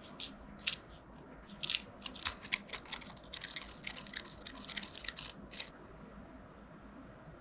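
Close-up crisp crackling and clicking, sparse at first, thick and continuous in the middle, stopping abruptly a little before the end.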